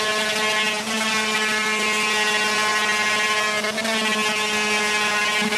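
Electric orbital sander running steadily while it sands the resin off a carbon fiber muffler: a constant motor whine with many overtones, sagging briefly twice as it is pressed on.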